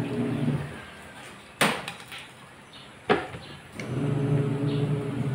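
Two sharp knocks of tableware or hands on the table, about a second and a half apart, over a steady low hum that drops away early and comes back near the end.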